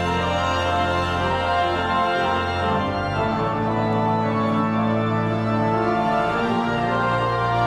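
Pipe organ playing slow, held chords over a deep bass note, the chords changing every second or two.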